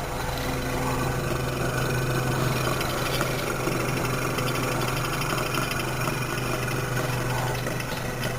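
Kirby hermetic refrigeration compressor of an old Servex Model 99 fridge running with a steady low hum, just after start-up.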